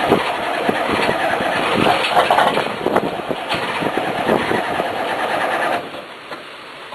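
A 6.2L V8 diesel (GM/Detroit Diesel) running cold just after a 5 °C cold start, heard at its vertical exhaust stack, with dense, uneven knocking. Near the end the sound drops suddenly to a quieter run.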